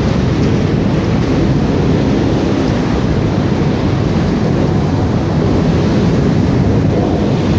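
Rotary log debarker line running, with logs moving along its chain conveyors: a loud, steady, dense machine noise, heaviest in the low end, with no separate knocks standing out.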